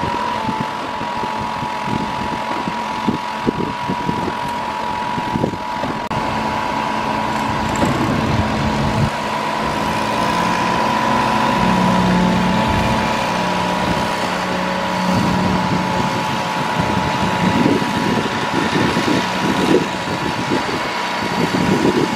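Machinery of a concrete wall pour: a concrete pump truck's engine and a backpack concrete vibrator's small gasoline engine running steadily, a constant drone with a steady whine, with irregular low thuds as concrete is pumped into the aluminium wall forms.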